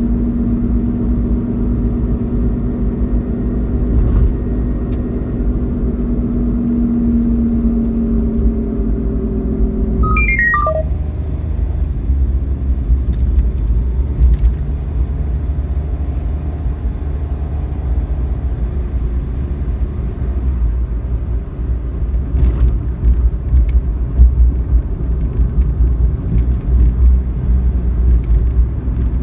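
Suzuki Wagon R (MH21S) driving, heard from inside: steady low road and engine rumble, with a steady hum that fades about ten seconds in, when a short falling run of beeps sounds. The rear hub bearing has just been replaced, and no bearing drone ('gō') is meant to be left.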